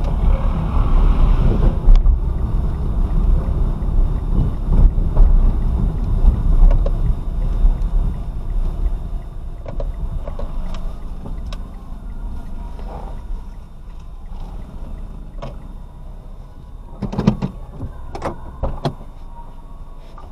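Road and engine rumble inside a moving car, picked up by a windshield-mounted dashcam's microphone. The rumble is loud at first and grows quieter through the second half. Near the end there are a few sharp knocks.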